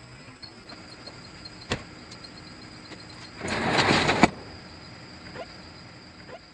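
Sectional garage door being pulled down: a click a little before two seconds in, then about a second of the door rolling down its tracks, ending in a sharp thump as it lands.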